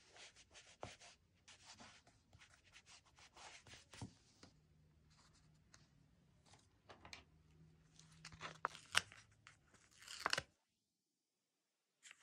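Soft crinkling and rustling of paper stickers and a glossy sticker sheet being peeled, pressed down and handled, with scattered light clicks and taps. A louder crackle about ten seconds in cuts off suddenly into a short silence.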